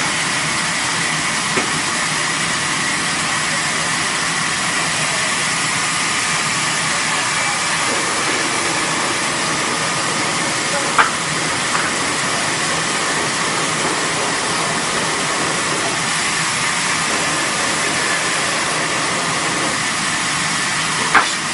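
Steady, loud machinery noise: an even hiss with faint steady whining tones. A sharp click sounds about eleven seconds in and another near the end.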